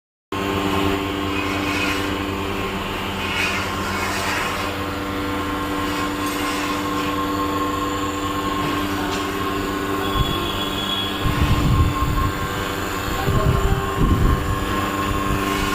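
Vacuum furnace installation running: a steady machine hum with several steady tones. Low rumbling swells come twice near the end.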